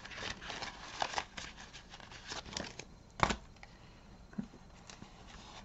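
Paper banknotes and paper cash envelopes being handled: soft rustling and small flicks as bills are counted out and slipped into envelopes, with one sharper snap of paper a little over three seconds in, then quieter handling.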